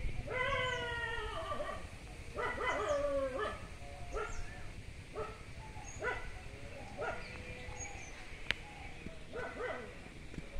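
Repeated whining animal calls: two longer calls falling in pitch in the first few seconds, then a string of short calls. There is a single sharp click about eight and a half seconds in.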